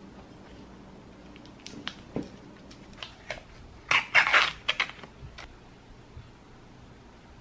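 Paper wrapper of a butter log crinkling as it is pulled open, loudest for about a second near the middle, after a few light taps.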